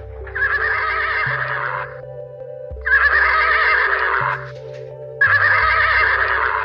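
A horse whinny, repeated three times at even intervals, each call about a second and a half long and wavering. Under it runs background music of sustained chords.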